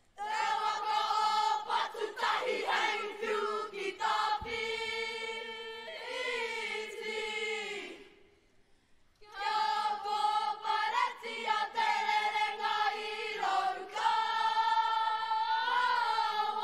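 A kapa haka group of children's voices, boys and girls, chanting a traditional Māori mōteatea in unison. It comes in two long sustained phrases with a pause of about a second between them, and each phrase ends with a downward slide in pitch.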